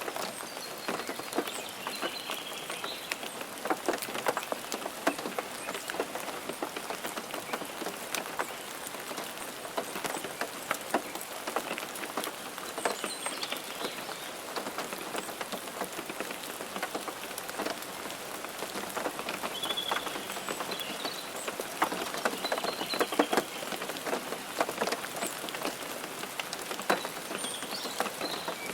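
Steady rain, with many separate close drops striking a surface.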